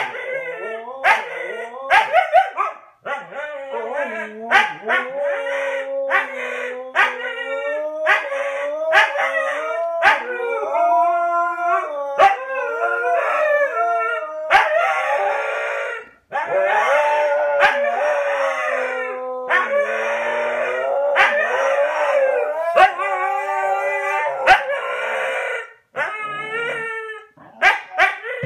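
Two husky-type dogs howling at each other, with long wavering howls overlapping and broken up by sharp barks and yips. The exchange gets louder and busier about halfway through.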